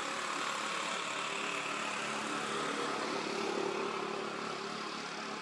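A motor vehicle's engine running with a steady hum, swelling slightly and easing off near the end.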